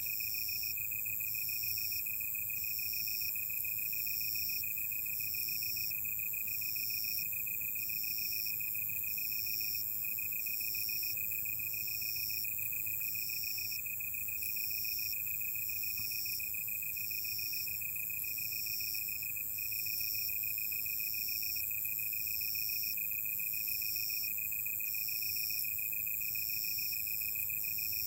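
Night insects singing together: several steady high trills, with a high chirping that pulses on and off about once a second.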